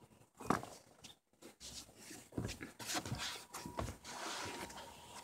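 Scattered soft knocks and rustles from someone moving barefoot on a wooden deck right beside the phone, with a brief hissy rustle near the end.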